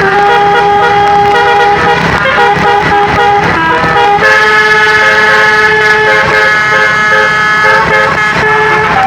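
Bus 'telolet' basuri musical horn playing a tune: a run of loud held notes that change pitch every second or two.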